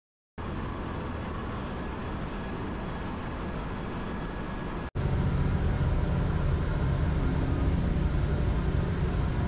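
Steady machinery din of a ship's engine room, a continuous noise with no distinct strokes. About halfway through it cuts to a louder, deeper steady hum.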